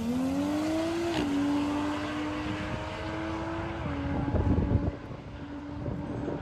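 Turbocharged 2JZ inline-six in a Datsun 280ZX drag car at full throttle, heard from behind as it pulls away down the strip. Its steady high note dips twice, about one and four seconds in, as the TH400 automatic shifts up, and it fades with distance.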